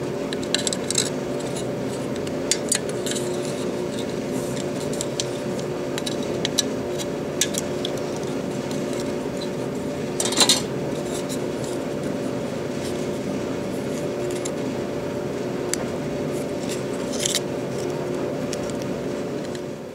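Steady hum of a room heater and clothes dryer, with scattered light clicks and ticks from plastic model-kit parts and hobby tools being handled. A sharper clatter comes about ten seconds in.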